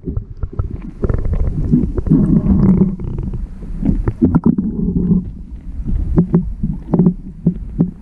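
Stream water heard through a submerged camera's housing: a muffled low rumbling and gurgling, with many short clicks and knocks scattered through it.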